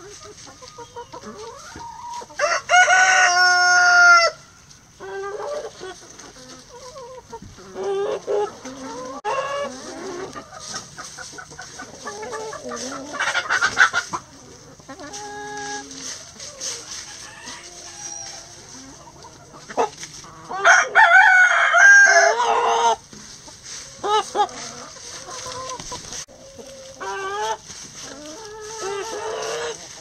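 Backyard chicken flock clucking softly while foraging, with a rooster crowing twice, once about two and a half seconds in and again about twenty seconds in.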